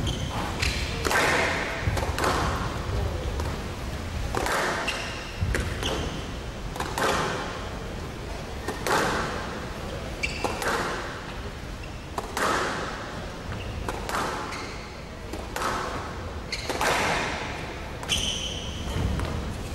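Squash rally on a glass court: the ball smacking off racquets and walls with a hit about every second or two, echoing in the hall, mixed with short squeaks of players' shoes on the wooden floor.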